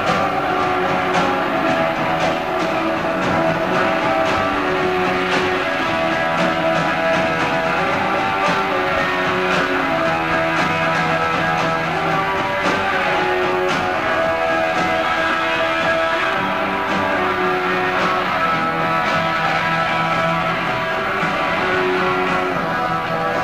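Live rock band playing an instrumental stretch without vocals: electric guitars ringing out over steady drum hits.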